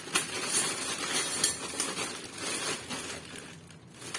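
A few sharp clicks and clinks of hard objects being handled, over a steady noisy background that fades near the end.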